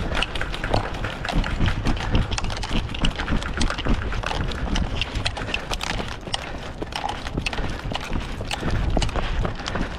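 A player running on foot: quick, irregular footfalls thudding, with many sharp clicks over them.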